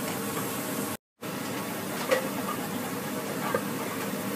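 Pancake batter frying in a pan: a steady sizzle that cuts out briefly about a second in, with a couple of faint clicks of the spatula against the pan in the second half.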